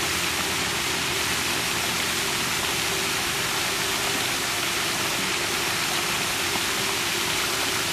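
Steady rush of running water with a faint low hum underneath, unchanging throughout.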